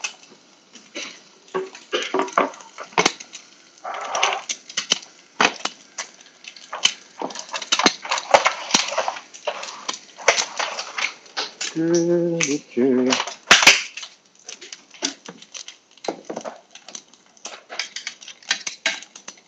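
Kitchen handling clatter: a bamboo cutting board knocked down onto a glass induction hob and a lidded frying pan moved about, a run of irregular knocks, clacks and scrapes. A brief voice sounds about twelve seconds in.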